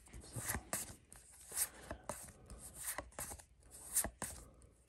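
Trading cards sliding and flicking against one another as a booster pack's cards are moved one by one from front to back of the stack: a run of short, irregular papery swishes and taps.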